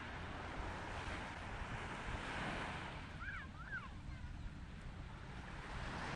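Waves washing on a sandy beach with wind buffeting the microphone, the surf swelling about two seconds in. A few short high chirps sound about three seconds in.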